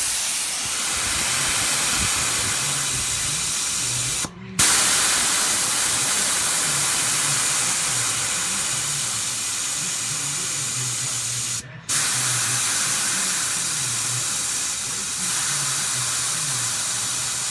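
Compressed air hissing steadily out of an Ingersoll Rand twin-stack portable compressor's tanks as they are bled down from full pressure, stopping for a moment twice, about four and twelve seconds in.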